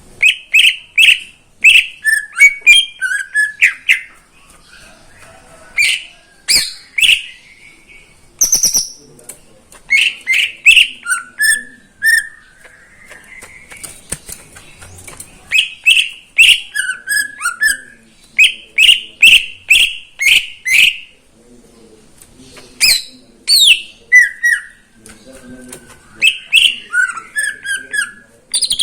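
Green leafbird (cucak ijo) singing loudly in bursts: rapid runs of repeated chirps and slurred whistles, broken by pauses of a second or two.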